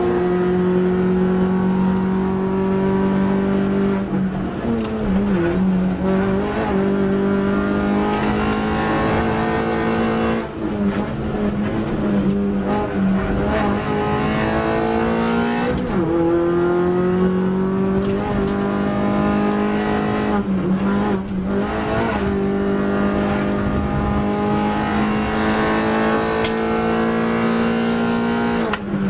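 MINI Cooper race car's four-cylinder engine heard from inside the cabin at racing speed. It holds high revs, with its pitch dropping sharply several times at gear changes and lifts under braking, then climbing steadily again as the car accelerates.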